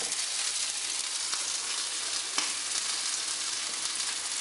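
Hot fat sizzling steadily, an even high hiss, with a faint click about two and a half seconds in.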